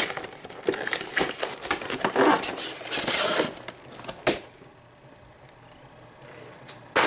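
Crinkling and rustling of a trading card collection box's plastic and cardboard packaging as it is handled, with irregular clicks and a louder rustle about three seconds in. It goes quieter after about four seconds, and a sharp knock comes near the end.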